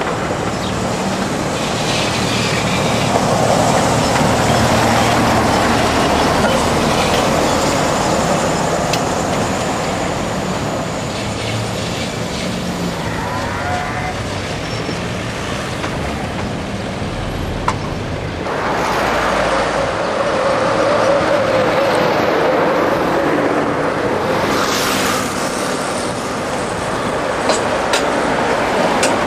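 ČKD Tatra trams running on street track: steel wheels rolling and clicking over the rails under a low motor hum, with some road traffic in the mix. There is a brief rushing swell a little past three quarters of the way through.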